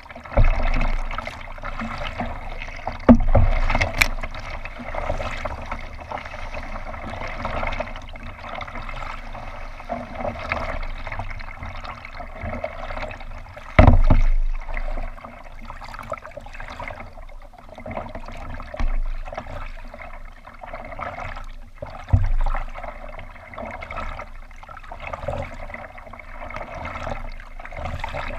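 Water trickling and gurgling along a kayak's hull as it moves through calm water, with a few sharp thumps, the loudest about halfway through.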